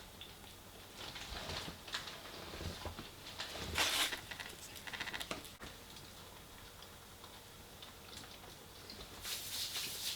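A person eating close to the microphone: intermittent bites and chewing, with the loudest crunch about four seconds in and another near the end.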